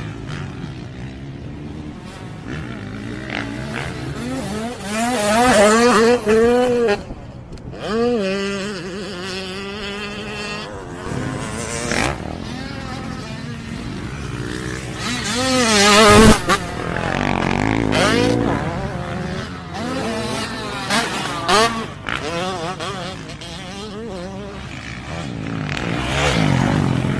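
Motocross dirt bike engines revving, the pitch climbing and dropping again and again as the bikes accelerate and shift gear, across several short clips.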